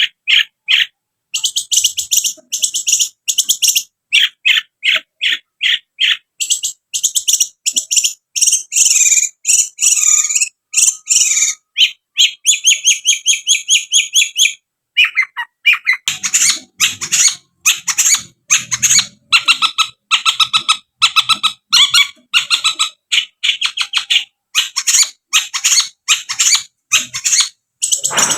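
Long-tailed shrike (cendet) singing a long, loud run of short, sharp, rapidly repeated high notes, with a quicker trill about halfway through.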